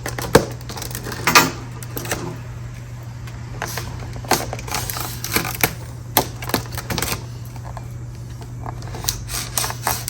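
A box of metal door-hinge steps being unpacked: scattered clicks, knocks and rustles as the packaging and parts are handled, over a steady low hum.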